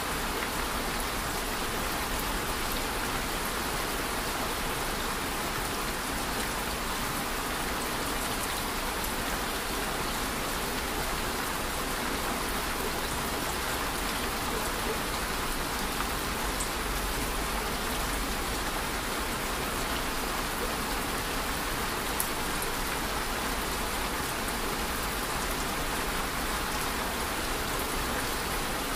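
Steady rain falling: an even, unbroken hiss of many drops.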